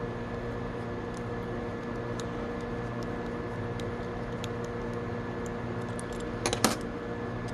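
Small screws and a screwdriver working into an aluminium drive sprocket and servo hub: faint scattered ticks, then a short cluster of louder clicks about six and a half seconds in, over a steady background hum.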